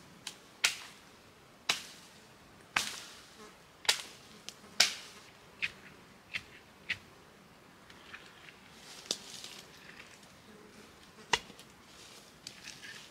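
Dry wooden poles and branches knocking and cracking as they are handled and laid against a lean-to frame: about a dozen sharp, irregular knocks and snaps with brushing between them.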